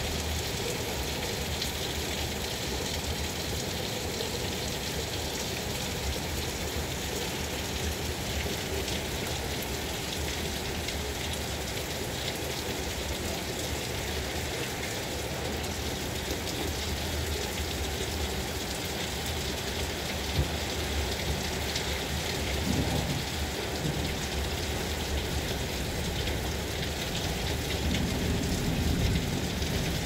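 Heavy rain falling steadily, with low rumbles swelling in the second half and loudest near the end.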